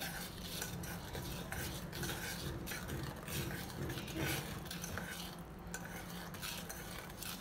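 Steel spoon stirring powdered sugar into milk and melted ghee in a stainless-steel bowl, scraping and clinking against the bowl's sides over and over.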